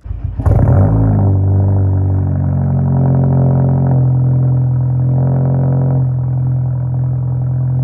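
Car engine cold-started: a brief crank, then it catches loudly and settles within about a second into a steady idle.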